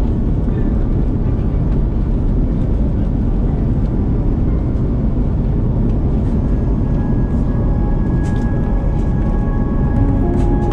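Steady, loud cabin roar of an Airbus A330-200 airliner in flight, with engine and airflow noise heard from inside the passenger cabin.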